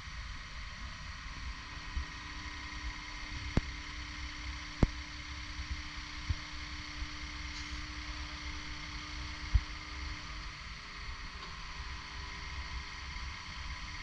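Takeuchi TB2150R excavator running while its boom is lowered and the arm stretched out: a steady engine hum with a thin high whine, wind rumble on the microphone, and a few sharp knocks.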